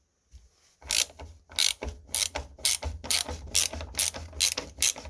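Ratchet clicking in quick, even strokes, about three a second, as it undoes a T25 Torx screw holding a washing machine door. It starts about a second in.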